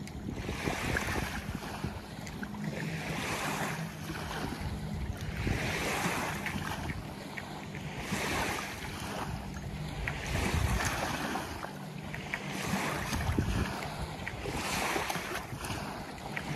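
Small waves lapping along a sandy shoreline and against a beached trimaran's hulls, the wash swelling every two seconds or so, with wind on the microphone.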